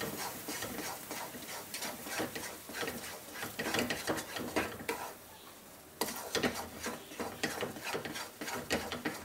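Wooden spatula stirring and scraping thick semolina halwa around a non-stick kadai: a quick, uneven run of scrapes and taps against the pan. The strokes drop away briefly around five seconds in and start again abruptly about six seconds in.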